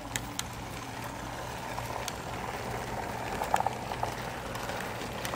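O-gauge model diesel freight train rolling past on its track: a steady hum and running rumble from the motor and wheels, with a few scattered sharp clicks.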